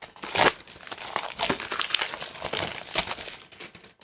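Plastic wrapping crinkling and tearing as a product box is unwrapped by hand: irregular crackle, loudest about half a second in, stopping at the end.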